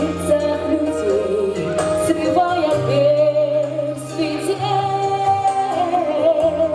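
Group of singers, women's voices leading, singing a slow melody in held notes with vibrato over a musical accompaniment with sustained bass notes.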